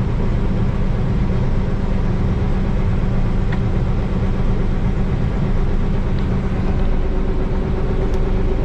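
Combine harvester running steadily, a constant engine and machinery drone with an even hum.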